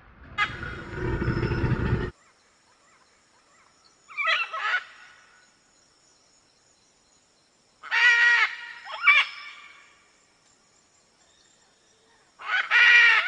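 A noisy, rough sound for about two seconds that cuts off abruptly, then four short pitched animal calls a few seconds apart.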